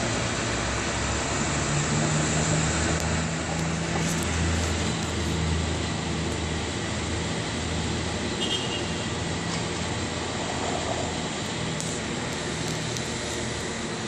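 Night city street noise: a vehicle's low, steady hum that slowly fades away over the last few seconds, over a constant traffic hiss.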